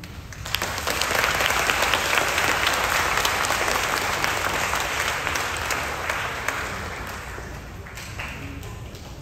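An audience of schoolchildren applauding. The clapping starts about half a second in, swells, then dies away over the next several seconds.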